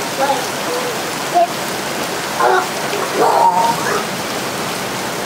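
Steady hiss of a hailstorm: hail and rain falling on the street, lawn and trees. A few short pitched sounds break through around the middle.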